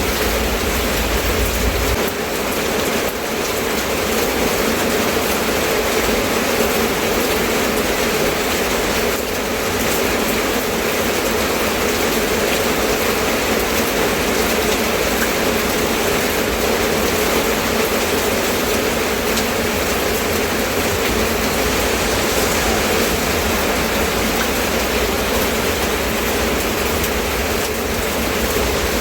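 Steady rain falling, an even hiss with no pauses. A low rumble underneath drops away about two seconds in.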